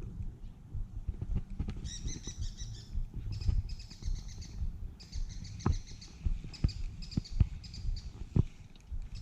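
A small bird singing in fast trills of repeated high chirps, three runs in a row. Under it are a low wind rumble on the microphone and a few sharp knocks.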